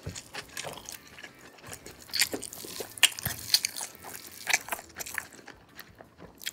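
A person eating up close to the microphone: irregular crunchy bites and chewing, loudest a little after the middle.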